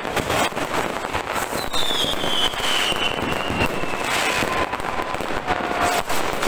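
Many fireworks and firecrackers going off at once in a dense, continuous crackle of bangs. About two seconds in, a long falling whistle sounds over them, with a fainter, lower falling tone near the end.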